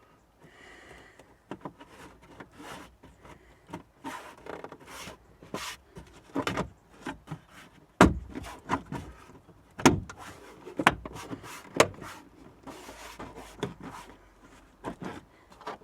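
Plastic trim shell of a Volvo V70 tailgate being fitted: scattered clicks, knocks and rubbing as its notches are slotted in and its clips pressed home, with a sharper knock about eight seconds in and a few more a couple of seconds later.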